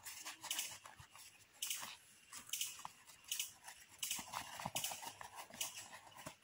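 Split firewood sticks knocking and clacking against each other as they are laid on a stone fire ring, with rustling from a leather work glove. The knocks come irregularly, several a second.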